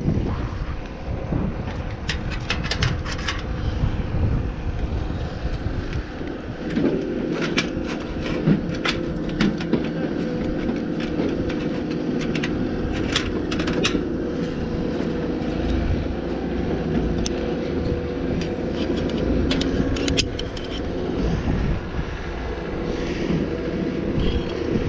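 A motor runs steadily with a low rumble under gusting wind noise, with scattered sharp metallic clicks and scrapes throughout.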